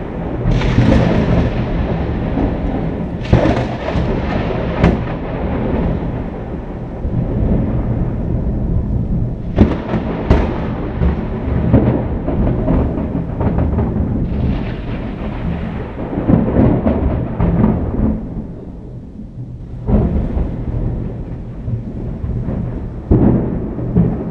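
Thunder rumbling on and off in a thunderstorm, with several sharp cracks, most in the first half; the rumble dies down for a moment about three quarters of the way through, then builds again.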